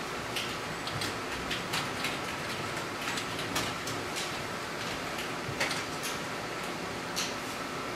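Steady hum and hiss of room and equipment noise, with irregular short clicks and taps scattered through it.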